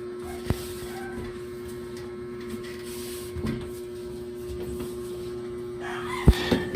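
A steady hum with a few knocks as a plastic spin mop is handled and worked over the floor; the sharpest knocks come near the end.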